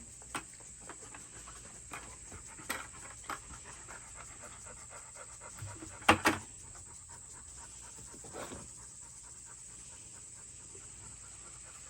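A dog panting steadily, with a few light clicks and a sharp double knock about six seconds in, like plastic parts being handled.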